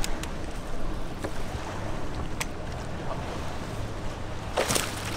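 Wind and water noise on a fishing boat, with a faint steady low motor hum setting in about two seconds in. A few sharp knocks sound, the loudest near the end.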